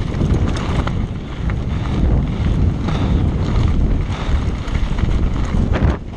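Heavy wind buffeting the microphone as a Canyon Sender downhill mountain bike rolls fast over a loose gravel track, with tyre crunch and small rattling clicks from the bike; a sharp knock about six seconds in.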